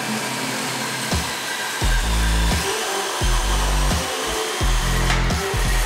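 Steady motor whir of a drill-driven hole saw spinning in a tube notcher, with background music.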